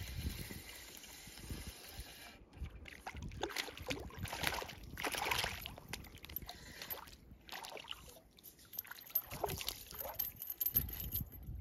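Hooked landlocked salmon splashing and thrashing at the water's surface as it is reeled in, in irregular bursts, the biggest about four to six seconds in and more near the end.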